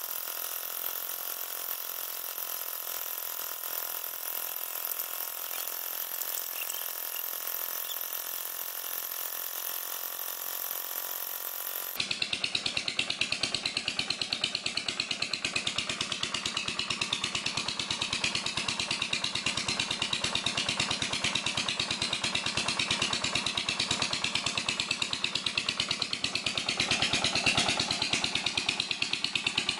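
Diesel engine driving the water pump for well jetting, running steadily. About twelve seconds in the sound changes abruptly to a louder, rapid, even knocking of the engine.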